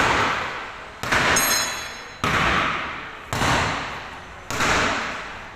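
Hammer blows on a damaged car's sheet-metal body panel, panel beating out the dents: five strikes at a steady pace of about one a second, each ringing out slowly before the next.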